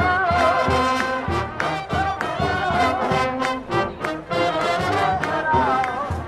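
Live brass street band playing a tune, horns such as trombones and trumpets carrying wavering melody lines over regular percussion hits.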